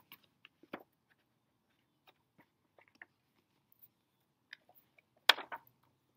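A hardcover picture book being opened and its pages turned and handled: scattered soft rustles and light ticks, with one sharper slap of paper about five seconds in.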